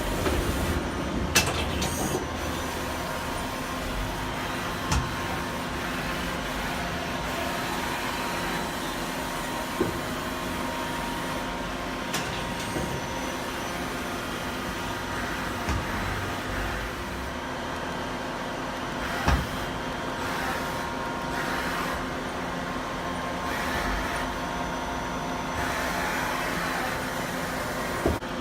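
Daewoo Puma 250L CNC lathe running a program: a steady mechanical hum with several held tones, broken by a handful of sharp clunks spread through and a few brief rises of hiss.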